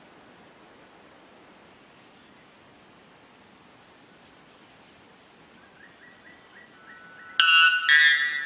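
White bellbird giving its loud two-note call near the end: two ringing, metallic notes about half a second apart, preceded by a faint run of short notes. A steady high thin whine, such as an insect, runs in the background.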